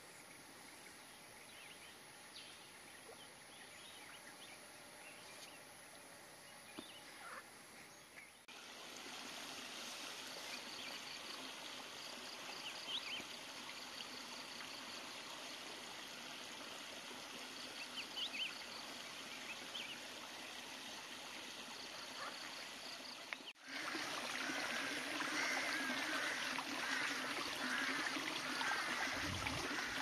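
Water pouring over a rock into a shallow pool, a steady splashing rush that starts abruptly about three-quarters of the way through. Before it, quieter outdoor ambience with a repeating high trill and a few short chirps.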